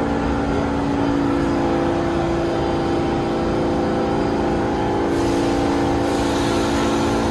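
New York City subway train moving in the station: a steady whine of several motor tones over continuous rumble. About five seconds in, a hiss joins in.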